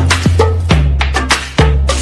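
Background music with a beat of deep bass notes, each starting on a sharp percussion hit.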